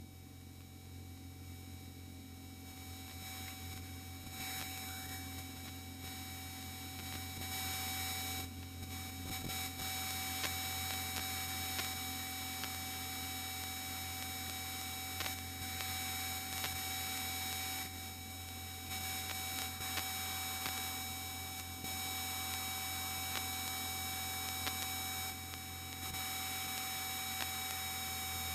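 Steady electronic whine and hum in an aircraft headset intercom feed, several fixed high tones over a low drone from the Extra 200 in flight. It grows louder over the first several seconds, with a few faint clicks.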